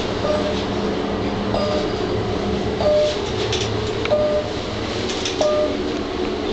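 Restored 1922 elevator car riding in its shaft: a steady rumble and hum, with a short chirp that repeats about every 1.3 seconds.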